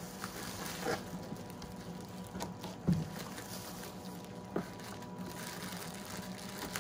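Plastic packing bag rustling and crinkling as it is lifted out of a cardboard box and set down, with a few light knocks, the sharpest about three seconds in, over a steady low hum.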